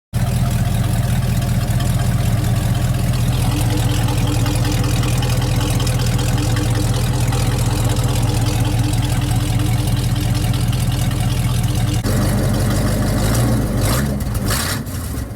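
1977 Chevy Cheyenne squarebody pickup's engine running with a steady low note. About twelve seconds in the note changes, and near the end come a couple of short rushing sounds before it drops a little quieter.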